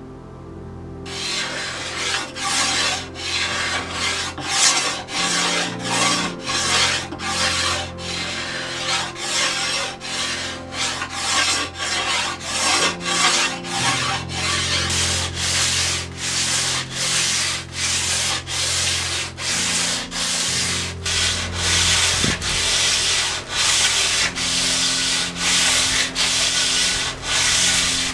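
Hand tool stroked back and forth along an Osage orange bow limb, taking wood off at about two strokes a second and starting about a second in: fine tillering of the limb that was not bending enough.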